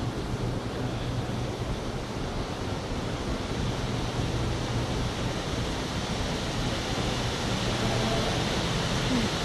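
Indoor fountain's water jet splashing into its basin: a steady rushing hiss that grows somewhat louder about halfway through as the jet rises higher.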